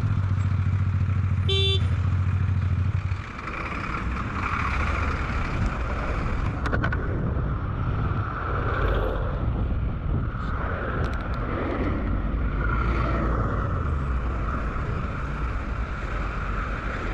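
Motorcycle running in traffic, with a steady low engine note for the first three seconds and a short beep about one and a half seconds in. After that, wind and road noise on the bike-mounted microphone take over as the bike rides on.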